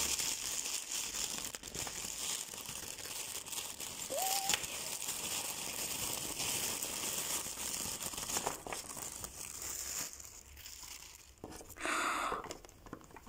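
A thin white plastic toy wrapper crinkling and rustling as hands pull it open and work a small figure out of it. The crinkling stops about ten seconds in, and there is a short burst of noise near the end.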